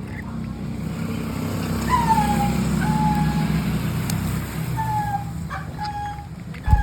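Engine rumble of a large road vehicle, swelling as it passes and then fading. About five short whistles, each falling slightly in pitch, sound over it.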